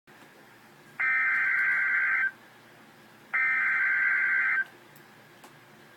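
Two bursts of Emergency Alert System SAME header data tones, each a buzzing electronic warble about a second and a quarter long, about a second apart, over a faint broadcast hiss.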